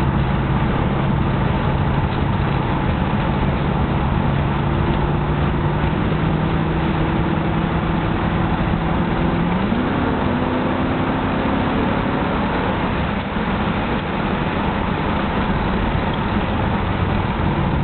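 Triumph Stag V8 running on the road while still cold, with an engine knock that is starting to quieten as the engine warms. The engine note climbs slowly, then rises and drops about ten seconds in.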